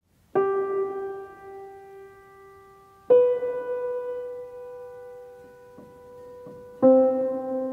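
Intro music: three slow keyboard notes, piano-like, struck about three seconds apart, each left to ring and slowly fade.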